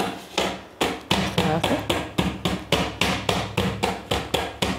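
An upturned metal cake tin, resting on a plate, being tapped rapidly and evenly by hand on its base, about three to four knocks a second, to loosen a steamed semolina cake and drop it out onto the plate.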